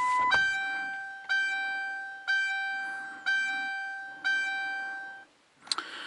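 Seat belt warning chime of a Mercury Grand Marquis, set off by the ignition being switched to run while the driver's belt is unbuckled. A steady electronic tone cuts off just after the start, then five bell-like dings about a second apart, each fading away, stopping about five seconds in.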